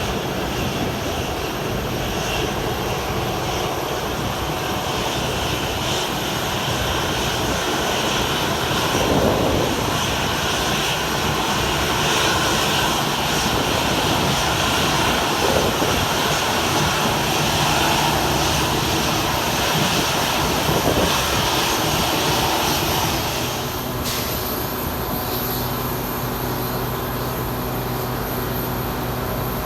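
Aircraft engines running steadily, a little louder through the middle and easing off near the end.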